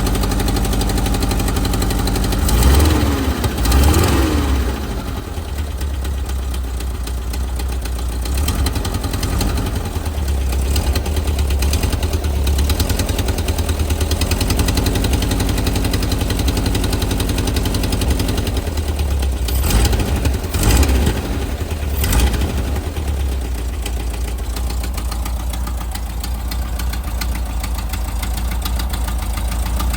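Volkswagen Type 4 air-cooled flat-four engine idling with a knock. It is revved briefly twice a few seconds in and again two or three times about two-thirds of the way through, settling back to idle each time.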